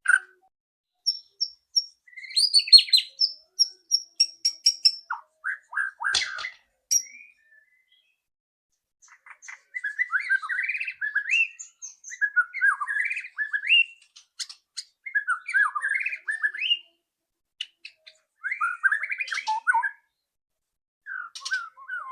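White-rumped shama singing in short, varied phrases. High whistled notes come in the first few seconds, then rapid chattering phrases from about nine seconds in, with short pauses between them.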